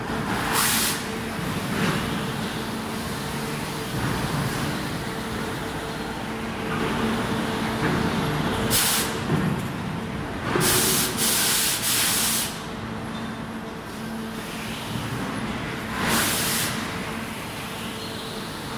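Raute veneer peeling line machinery running with a steady hum, cut by several short bursts of hissing: one at the start, a cluster of them in the middle and another near the end.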